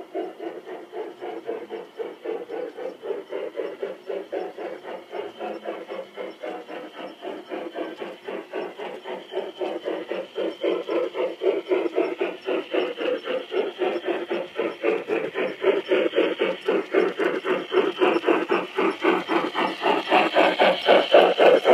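A G-scale model of a Saxon Meyer (IV K) steam locomotive chuffing in a fast, even rhythm of about five beats a second, growing steadily louder as the train approaches.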